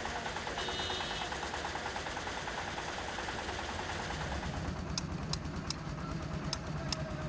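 Stick welding arc crackling and hissing on a steel barrier post, then, about five seconds in, sharp metallic clinks of hammers striking steel chisels into concrete pavement, about half a dozen strikes two or three a second.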